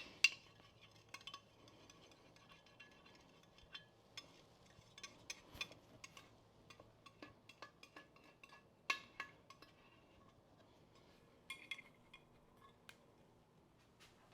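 Scattered light clinks and taps of glass pantry containers and their lids being handled, some ringing briefly, while bread flour is transferred into them; the sharpest clinks come just after the start and about nine seconds in.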